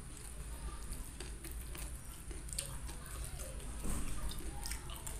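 Close-up eating sounds: chewing and small wet mouth clicks, with fingers squishing and gathering rice and jengkol curry in a stone mortar. The sounds are scattered and short, and a little louder about four seconds in.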